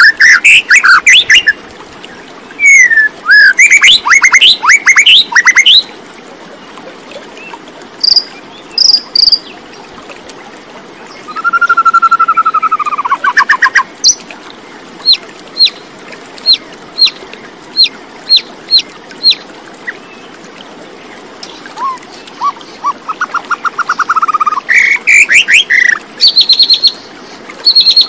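Songbirds singing in separate phrases of quick chirps, trills and down-slurred whistles, with pauses of a few seconds between phrases.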